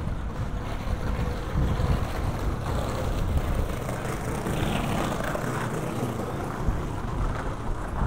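Downtown street traffic: a steady low rumble of vehicles, one passing louder about halfway through, with wind buffeting the microphone.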